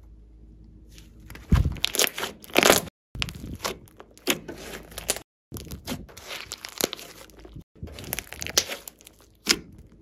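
Hands squeezing, stretching and poking a large lump of glossy slime: sticky crackling and squelching with small pops of trapped air, in clusters broken by three brief gaps of silence.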